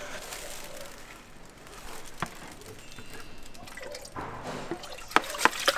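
Washed rice and water being tipped from a plastic colander into a rice cooker's metal inner pot, with dripping and splashing. The splashing thickens about four seconds in, and a few sharp knocks come near the end.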